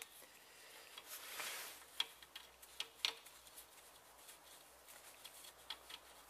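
Faint, scattered metallic clicks and taps as an extraction bolt is fitted by hand into the side plate of a Peugeot 206 rear axle, the two sharpest about two and three seconds in.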